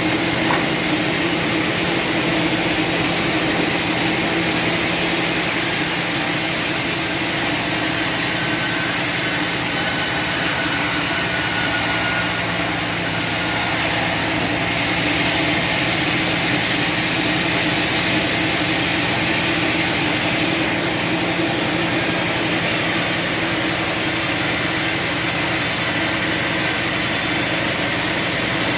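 Bandsaw sawmill running steadily, its motor and band blade working through wood: a continuous mechanical drone with a strong hiss on top, the hiss shifting a little about halfway through.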